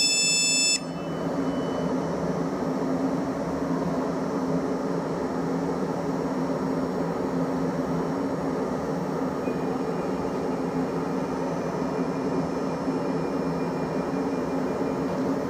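Stationary South Western Railway electric multiple unit humming steadily at the platform, its onboard equipment running. The door-closing warning beeps cut off about a second in.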